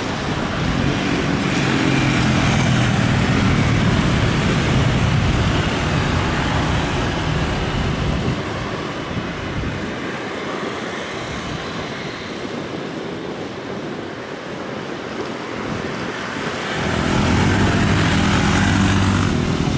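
Airbus A330 airliner's jet engines running at taxi power: a steady rumble and hiss, louder near the start and again near the end.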